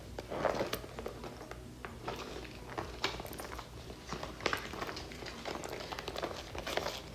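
A small leather handbag being handled and opened: soft rustling and crinkling with many small irregular clicks and taps, as from the bag's metal hardware.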